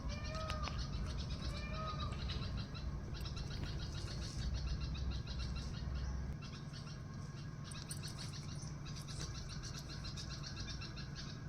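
A flock of small birds chirping and chattering densely and continuously, with a couple of drawn-out rising-and-falling calls in the first two seconds.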